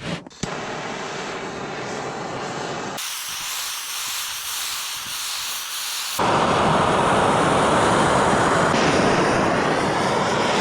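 Torch flame hissing steadily as it chars an oak board to seal it. The sound changes tone abruptly twice and is loudest from about six seconds in.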